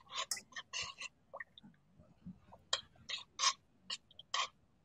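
Spoon stirring chunky soup in a stainless steel pot: a scattered run of short scrapes and clinks against the pot.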